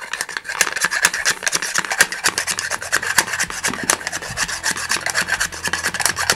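Wooden dowel worked rapidly up and down inside a hollow model-rocket nose cone, tamping modelling clay down into the tip. It makes a fast, continuous scraping and rubbing with many quick knocks.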